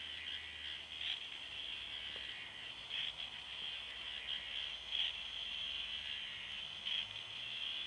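The K'nex strandbeest's small electric motor and plastic gear train whirring steadily with a high buzz, with a slightly louder click about every two seconds as the mechanism turns.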